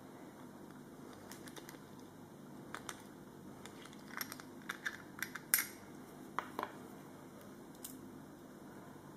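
Small sharp metallic clicks and clinks from a wristwatch's metal case and link bracelet being handled and turned over in the fingers, scattered and irregular, thickest and loudest in the middle, with one last click near the end.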